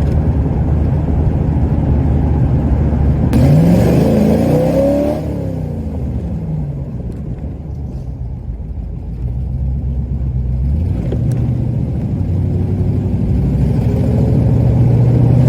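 Cobra roadster's V8 with side-pipe exhaust on the road, revving up under acceleration about three and a half seconds in, easing off to a steadier cruise, and pulling again near the end. It runs smoothly with no rattle, its loose side pipe support bracket nut now tightened.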